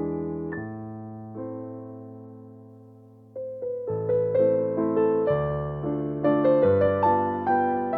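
Background piano music: slow notes and chords that ring and fade, growing busier and louder about three and a half seconds in.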